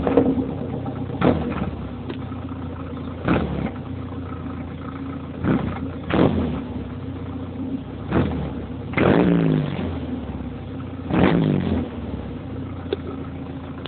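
1990 Volkswagen Taro pickup engine idling through vertical exhaust stacks, blipped about seven times, each rev rising sharply and falling back to idle.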